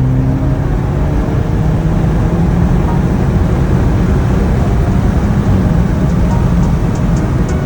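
Turbocharged Audi A5 engine pulling under hard acceleration, its pitch rising briefly at the start and then holding steady beneath heavy road noise.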